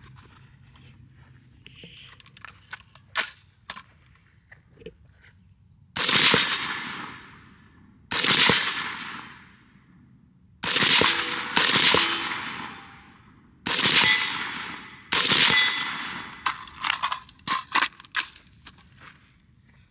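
Six suppressed rifle shots from an 11.5-inch BCM AR-15 short-barrel rifle fitted with a SureFire SB2 suppressor, fired singly one to three seconds apart, each trailing off over about a second, with a ringing clang of steel targets being hit. A few light clicks near the end.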